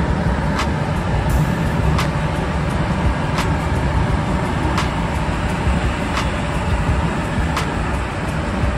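Steady rumble of rushing air and airframe inside a glider's cockpit as it comes in to land with its air brakes out. A light, sharp tick repeats about every second and a half.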